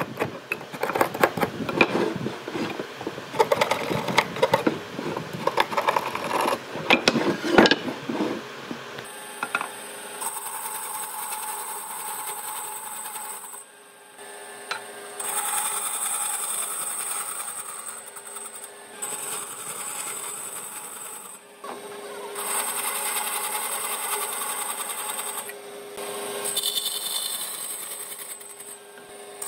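Wood being worked by hand for the first several seconds, with rapid irregular knocks and scraping. Then a power tool runs on the wood in stretches of a few seconds each, with short pauses between.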